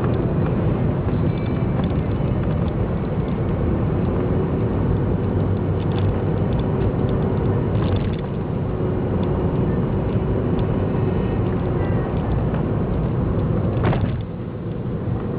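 Daihatsu Copen driving on the road, its small turbocharged four-cylinder engine and tyre noise making a steady low rumble. There is a brief click about 8 seconds in and another near 14 seconds, after which the rumble eases slightly.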